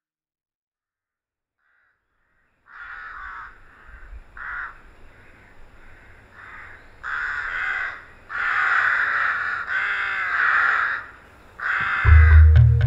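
After a few seconds of silence, a flock of crows cawing, with many harsh overlapping calls that grow louder from about halfway. Deep bass music comes in near the end.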